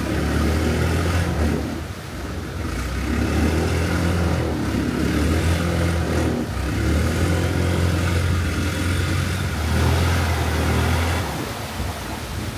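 Longtail boat's engine running as the boat travels along the canal. It is loud and steady with a wavering pitch, dips briefly twice, and drops off near the end.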